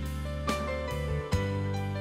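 Instrumental background music, with pitched notes changing about every half second.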